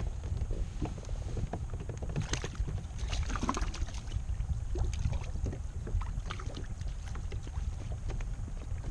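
Scattered knocks and clicks from gear being handled aboard a fishing kayak, several close together a few seconds in, over a steady low rumble of wind on the microphone.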